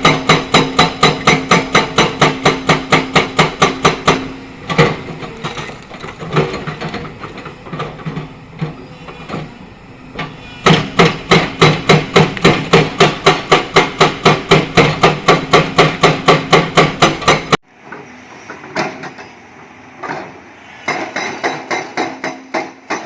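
Excavator-mounted hydraulic breaker hammering limestone rock, about four blows a second over the Hyundai excavator's running diesel engine. It pauses for several seconds, resumes in a steady run that cuts off suddenly, and starts again more quietly near the end.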